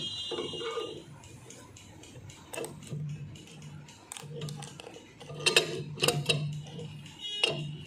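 Steel parts of an Eicher 242 tractor's disc brake assembly clinking and clicking as the brake plate with its new return springs is handled and fitted by hand: scattered sharp metallic clicks, the loudest a pair about five and a half and six seconds in.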